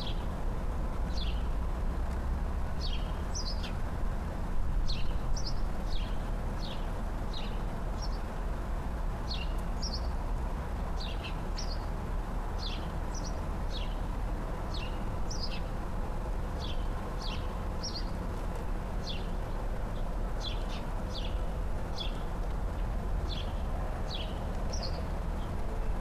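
A small songbird chirping over and over: short, high chirps that drop in pitch, roughly one or two a second. A steady low rumble runs underneath.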